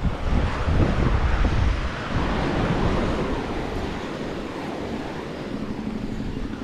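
Wind buffeting the microphone in uneven gusts over the wash of sea waves at the shore.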